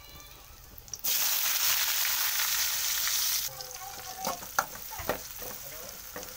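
Sliced onions and green chillies hitting hot oil in a steel kadai, a loud sizzle that begins suddenly about a second in and drops off after about two and a half seconds. Quieter frying follows, with a slotted spoon knocking and scraping against the pan several times.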